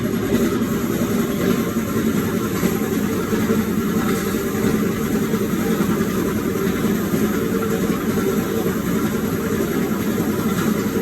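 Engine of a Willys M606 jeep running steadily with an even low rumble.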